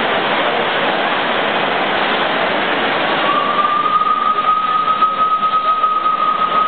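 Live-steam ride-on miniature tank locomotive hissing steam. About three seconds in, a steady high steam whistle starts and holds on one note.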